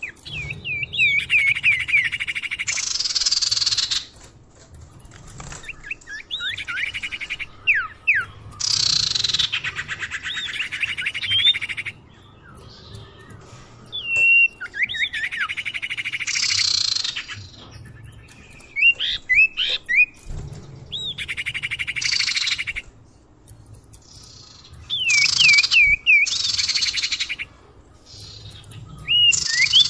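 Common iora (cipoh) song played as a bird lure: bouts of quick swooping whistles, each running into a buzzy rattling trill, repeating every few seconds.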